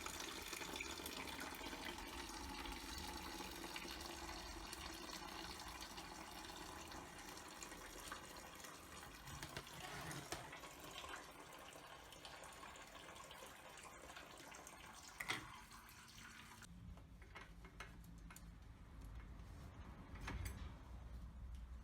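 A steady rushing hiss that slowly fades and stops abruptly about three-quarters of the way through, with a single sharp click shortly before it stops; faint small clicks follow.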